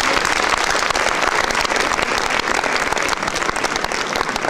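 Audience applauding: many hands clapping at once in a dense, steady applause.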